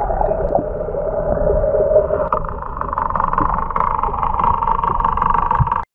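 Boat motor running steadily with a low rumble. Its hum steps up in pitch about two seconds in as it speeds up, then cuts off abruptly near the end.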